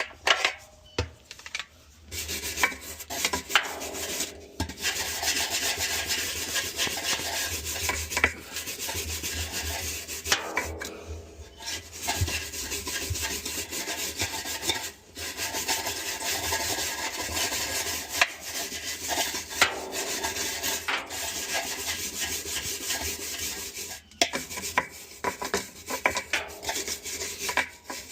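Scrubbing a part of a Samsung washing machine by hand: steady scratchy rubbing in long runs broken by short pauses, giving way to scattered scrapes and knocks near the end.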